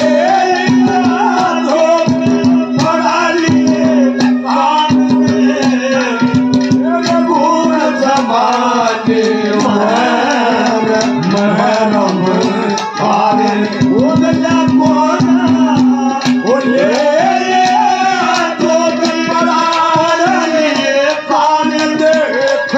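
Instrumental interlude of live Haryanvi ragni music: a gliding melody over a steady drone, with hand-drum strokes and a jingling rattle keeping the beat.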